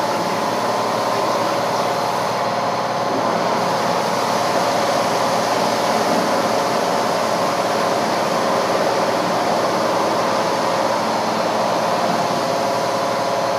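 PDQ LaserWash 360 touchless car wash running its high-pressure cycle: a steady machine hum under the hiss of water spray hitting the car.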